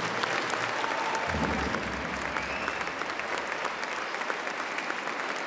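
A large crowd applauding inside a cathedral, a dense clatter of clapping that cuts off abruptly near the end.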